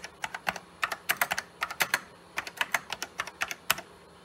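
Typing on the Sanyo MBC-555 computer's keyboard: sharp key clicks, several a second, in short uneven runs with brief pauses.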